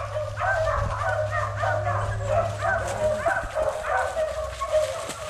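Beagles yipping and barking over one another, short rising-and-falling calls coming several times a second.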